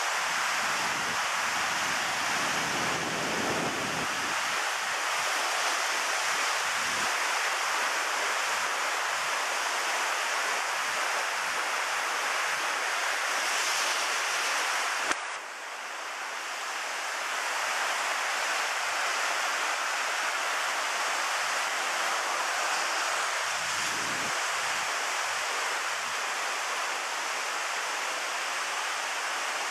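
Mountain stream rushing steadily over rocks. About halfway there is a sharp click, and the rushing briefly drops in level before it builds back up.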